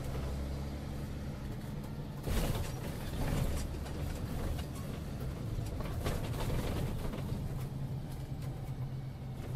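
A motor vehicle's steady low engine drone with road noise, and a louder rush of noise about two and a half seconds in.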